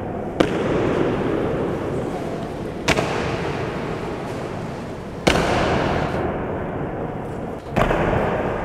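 Honour guard's boots striking the stone floor in a slow ceremonial march step, the guards in unison: four sharp strikes about two and a half seconds apart, each echoing around the hall, over a steady murmur of room noise.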